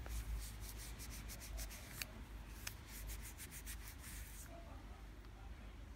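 Grey cloth rubbing over a Zippo lighter's metal case in quick strokes, a rapid run of short swishes that stops about four and a half seconds in.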